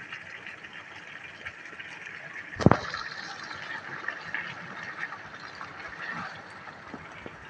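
Duck meat sizzling steadily as it is stir-fried in spice paste in a pan, with one sharp knock about two and a half seconds in and a few light clicks.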